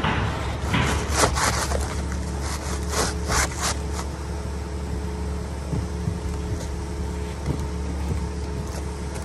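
Asphalt shingles scraping and rubbing against the roof as they are handled and slid into place, a run of short rasping strokes in the first four seconds, then fainter, over a steady low hum.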